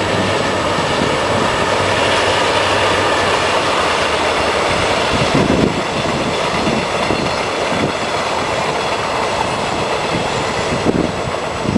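KTM passenger train carriages rolling along the tracks, a steady rumble of steel wheels on rail. From about halfway, irregular low buffeting, like wind on the microphone, comes and goes.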